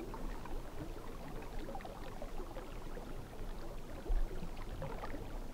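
River water running and lapping along the bank, an even grainy rush of water with a brief low rumble of wind on the microphone about four seconds in.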